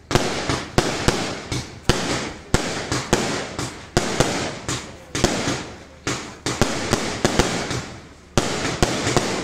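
Aerial fireworks going off in quick succession: sharp bangs about two a second, each followed by a noisy tail that fades away.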